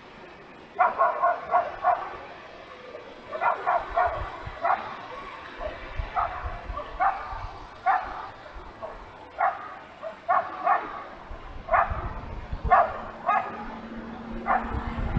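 A dog barking repeatedly: a quick run of four or five barks about a second in, another run a few seconds later, then single barks spaced about a second apart.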